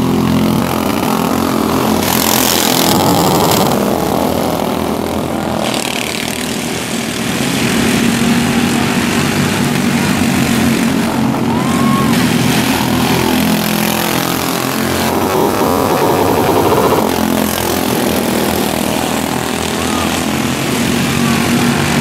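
Dirt-track race car engines running hard at racing speed as the cars lap the oval, a continuous loud engine note that swells briefly as cars pass closer.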